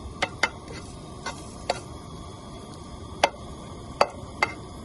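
Garlic frying in olive oil in a pan: a low, steady sizzle with a scattering of sharp, irregular ticks, about seven in all.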